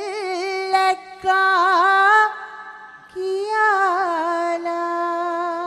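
Unaccompanied solo voice chanting a Sinhala folk verse (kavi) in the traditional drawn-out style. It holds long notes with wavering turns across three phrases, with short breaths between them.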